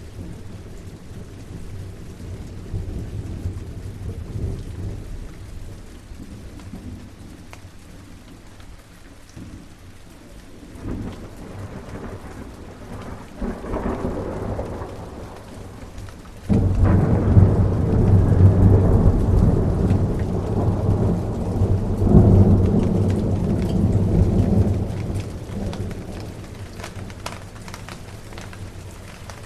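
Steady rain with thunder: a couple of low rumbles, then a loud thunder crack a little past halfway that rolls on for several seconds, swells again, and fades away under the rain.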